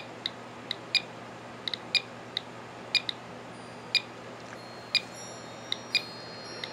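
GQ GMC-300 Geiger–Müller counter clicking at random intervals, a short sharp beep for each count, about two to three a second. It is registering radiation from the thorium-bearing glass of a Super-Takumar 55 mm f/2 lens set in front of it.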